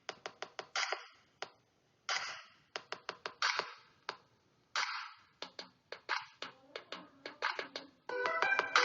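Background music made of sharp percussive hits in an uneven rhythm with brief silences between them, with sustained pitched notes coming in near the end.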